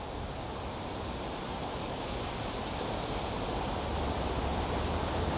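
Wind blowing across the microphone and through the bankside trees and reeds: a steady rushing with a low rumble that slowly grows louder.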